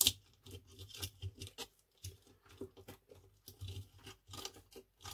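A screwdriver prising and scraping at the parts inside an opened plastic household circuit breaker, making scattered small clicks, the sharpest right at the start.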